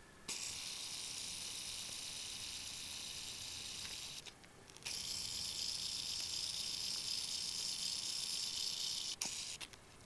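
A steady high hiss starts abruptly and breaks off for under a second about four seconds in. It then resumes and cuts off about nine seconds in.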